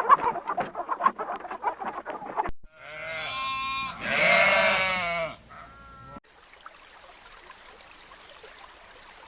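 A run of rapid, short chattering calls, then a loud drawn-out bleat lasting about two and a half seconds, followed by a short call and then only a faint hiss.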